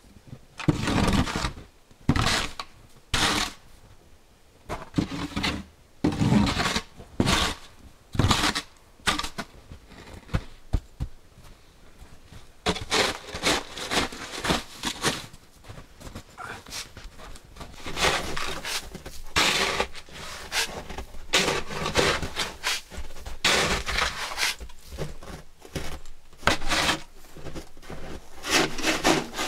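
Snow shovel scraping and scooping packed snow in repeated strokes, about one a second at first, then coming closer together through the second half.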